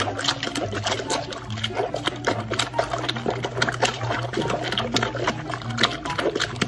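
A dog paddling in pool water, its legs churning and splashing in a quick, irregular run of splashes, over a steady low hum.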